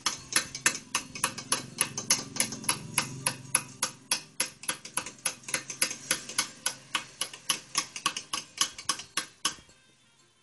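Hand chiselling of a stone slab: a small hammer tapping a steel chisel in quick, even strokes, about five a second. The tapping stops shortly before the end.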